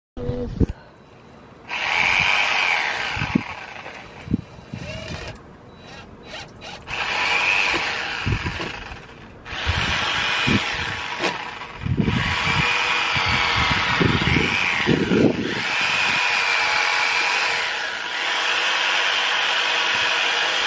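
Cordless drill running in about six runs of a few seconds each into a wooden utility pole, its motor whine rising and falling in pitch with the trigger and the load. Between runs there are a few short knocks.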